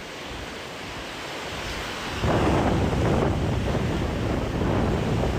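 Strong wind buffeting the microphone over the wash of surf. About two seconds in, a stronger gust sets in with a heavy low rumble and stays.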